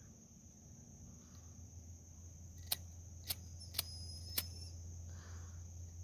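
Four sharp metallic clicks about half a second apart from a brass Zippo Slim lighter being handled; the last two ring briefly. A steady high insect trill runs underneath.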